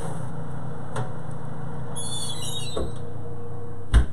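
A baking pan scrapes and rattles onto the wire rack of a Whirlpool fan oven, followed by a knock. Near the end the oven door shuts with a sharp thump. A steady hum from the running fan oven lies underneath throughout.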